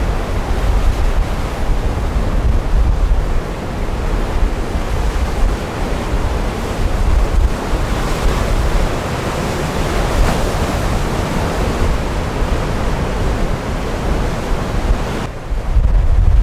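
Barents Sea surf breaking and washing over rocks and a pebble shore, a continuous surging wash of foam. Wind buffets the microphone with a heavy low rumble; about a second before the end the hiss of the surf drops and the rumble takes over.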